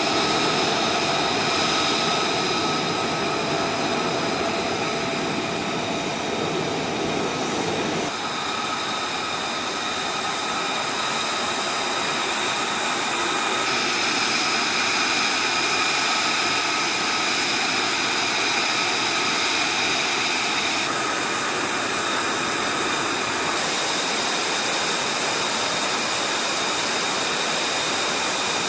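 F-35A Lightning II's single F135 turbofan running on the ground during hot-pit refuelling: a steady rush with high whining tones over it. The balance of the sound shifts abruptly a few times.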